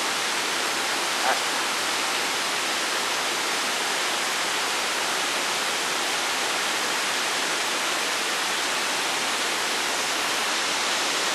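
A steady, even rushing noise that does not change, with one faint tick about a second in.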